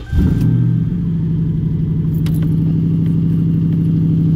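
A 2011 Ford sedan's engine being started from cold, with the keys jangling in the ignition. It turns over briefly and catches, then settles into a steady idle.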